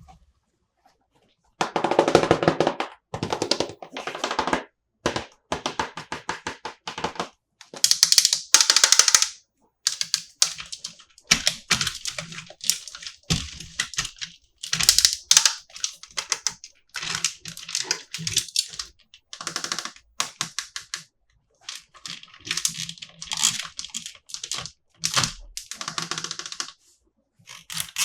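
Toy packaging being handled and opened: bursts of rapid crackling and clicking, stopping and starting with short pauses.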